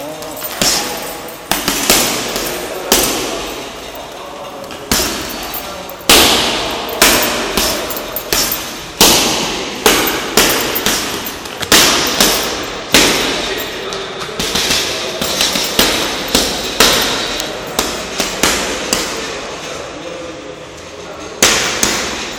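Boxing gloves punching a heavy bag: sharp slapping thuds in irregular combinations of several blows a second, with a quieter spell about four seconds in.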